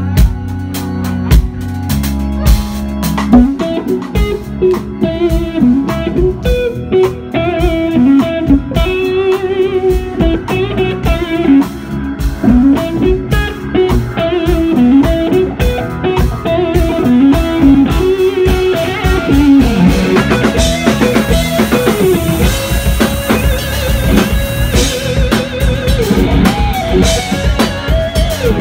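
Live blues-rock band playing: an electric guitar line that bends in pitch over bass guitar and drums. Cymbals grow louder partway through.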